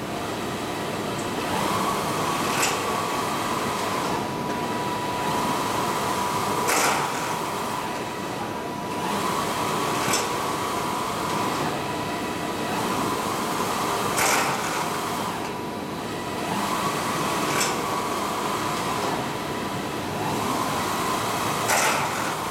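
HP wide-format inkjet printer printing: the print-head carriage runs back and forth with a steady mechanical whine, and a sharp click sounds at each reversal, about every three to four seconds.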